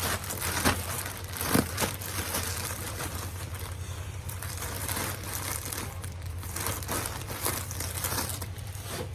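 Plastic packaging crinkling and rustling as clothes are handled, with a few sharper crackles in the first two seconds.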